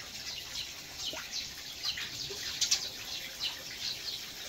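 Small birds chirping around the garden: many short, high chirps that each fall in pitch, repeated irregularly, with a sharper, louder call a little after halfway through.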